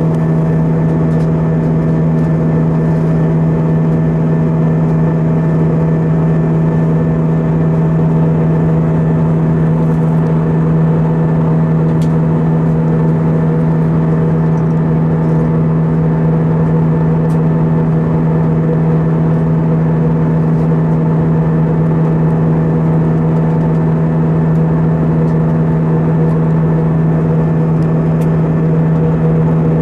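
Airbus A320-232 cabin in flight: the steady drone of its IAE V2500 turbofan engines, with a strong low hum and several fainter steady tones over an even rush of noise.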